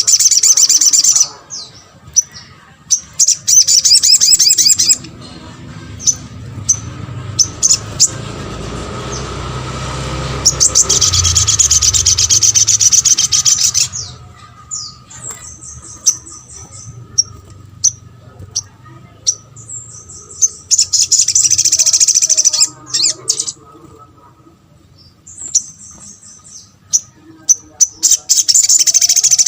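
Spiderhunter (sogok ontong) calling: fast runs of high, sharp chips lasting one to three seconds, repeated several times, with single chips in between. A low rumble builds up in the background for several seconds and stops suddenly about halfway through.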